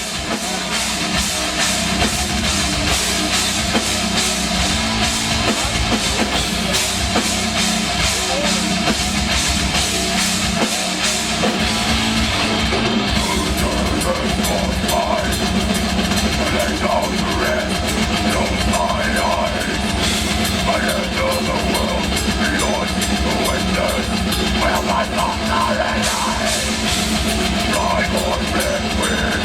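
Heavy metal band playing live: a fast drum kit with distorted electric guitars and bass, loud and dense throughout.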